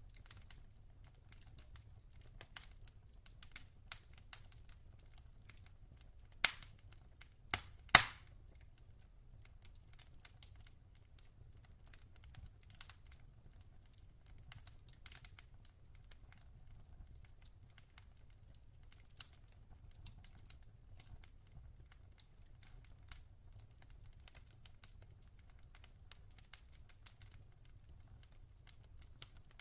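Log fire crackling: frequent small snaps and ticks, with two louder pops about a second and a half apart roughly a quarter of the way in.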